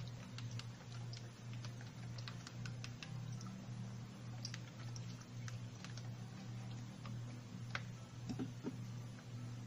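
Light, scattered clicks and soft wet pats of a hand rubbing liquid seasoning into a raw whole chicken, over a steady low hum.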